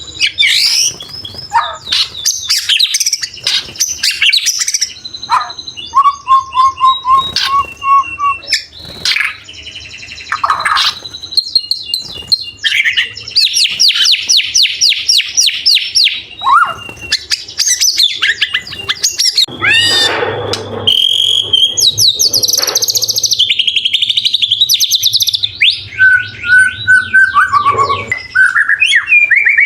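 White-rumped shama (murai batu) singing a long, varied song: clear whistled notes, fast rapid-fire trills and sharp high chattering phrases follow one another with barely a pause.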